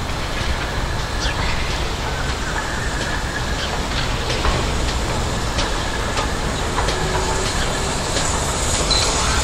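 Steam locomotive working at a distance: a steady low rumble with scattered clanks and knocks, and a few birds calling.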